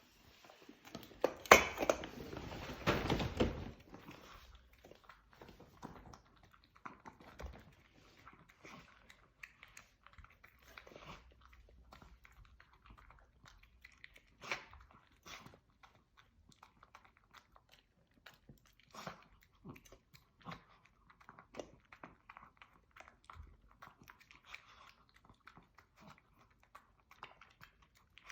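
Maltese dog chewing and biting into a dog birthday cake: scattered short clicks and crunches of its mouth and teeth. A louder, denser burst of eating or handling noise comes in the first few seconds.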